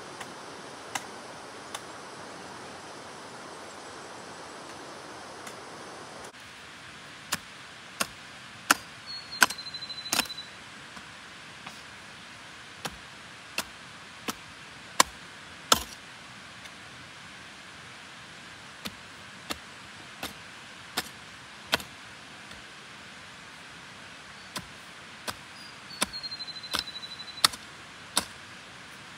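A hand tool striking over and over: sharp single chops, about one to two a second with pauses, over a low steady hiss. A short, high falling whistle comes twice, once about nine seconds in and again near the end.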